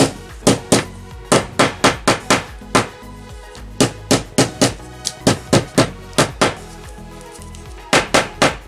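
Rubber mallet striking a dented sheet-metal radio panel in quick runs of blows, with brief pauses between runs, knocking the dents flat.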